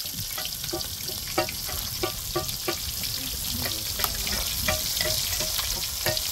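Marinated chicken leg pieces deep-frying in hot oil: a steady sizzle with frequent crackling pops.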